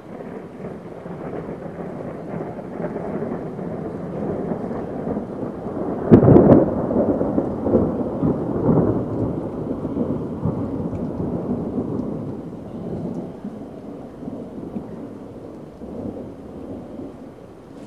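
Thunder rolling: a long rumble that builds, breaks into a sharp loud crack about six seconds in, then rolls on in uneven swells and slowly dies away.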